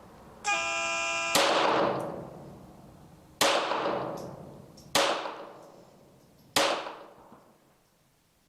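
A start tone sounds for about a second. Then a CZ 75B pistol with a Kadet .22 LR conversion fires a string of shots about a second and a half apart: four shots, with a fifth right at the end. Each shot rings out with a trailing echo.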